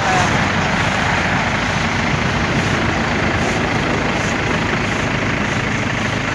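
Vehicle engine running steadily with road traffic noise.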